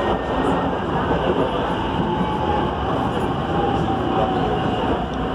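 Metro train running at speed, heard from inside the passenger car: a steady rumble of wheels on rail and running gear, with a faint wavering whine over it.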